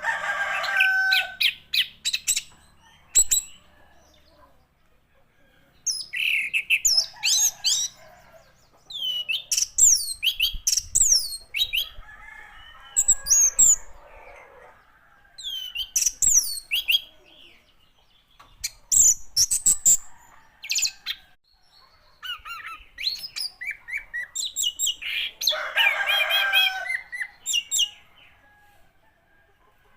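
Orange-headed thrush singing in phrases of quick, varied, sharply falling whistled notes, with short pauses between phrases. A lower, rougher drawn-out call sounds about three-quarters of the way through.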